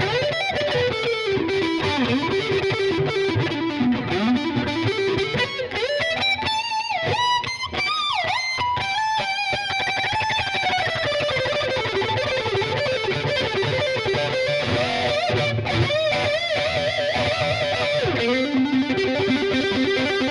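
Fender Blacktop Jaguar HH electric guitar with humbucking pickups and a distorted tone, played as a lead line with string bends and vibrato. The line climbs higher in the middle and drops back to a lower repeated riff near the end.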